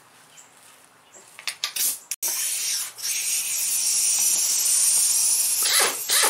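A few light knocks, then a handheld air tool hisses steadily for about three and a half seconds on the centre bolt of an A/C compressor clutch, a bolt held fast with thread locker.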